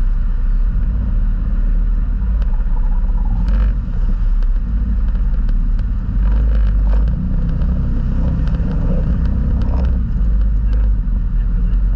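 Off-road vehicle's engine running with a steady low rumble as it drives over a rutted dirt trail, with scattered knocks and rattles a few times along the way.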